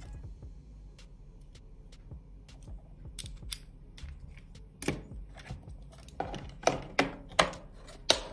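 Scattered light clicks and taps, then a quick run of sharp knocks in the last two seconds, as small hard parts are handled on a tabletop.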